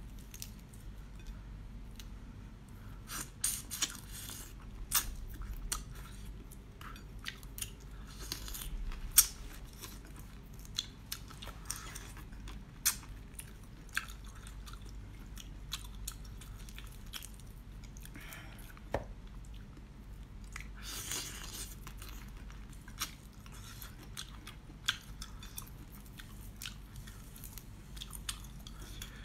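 Raw marinated shrimp being peeled and eaten close to the microphone: chewing and biting, with many scattered sharp clicks and crunches of shell and flesh.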